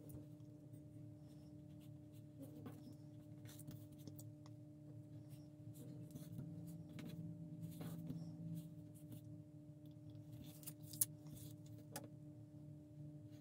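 Faint light taps and rubbing from small handling work, over a steady low electrical hum, with a sharper click about eleven seconds in.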